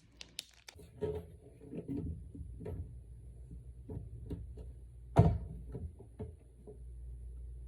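Light clicks and knocks of gold cabinet pulls and cabinet doors being handled while the pulls are fitted, with one louder knock about five seconds in.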